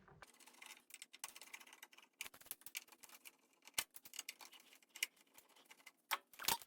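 Screwdriver working small screws out of a Nakamichi 700 cassette deck's chassis: light, irregular clicks and ticks of metal on metal, with a few sharper clicks about four, five and six and a half seconds in.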